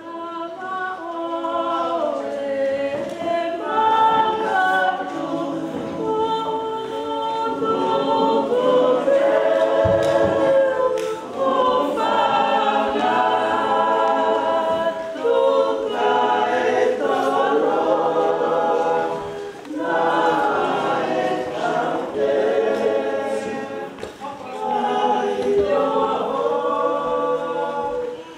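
A choir singing in Tongan in harmony, the phrases broken by short breaths.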